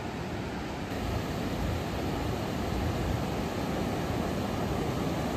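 Ocean surf washing onto a sandy beach: a steady rushing noise that grows a little louder about a second in.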